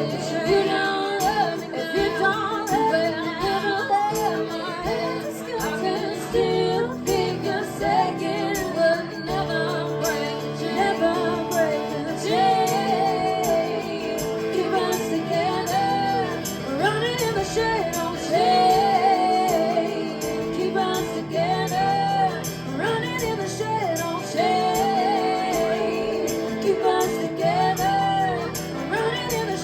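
A live rock band playing, with a steady beat under a wavering lead melody.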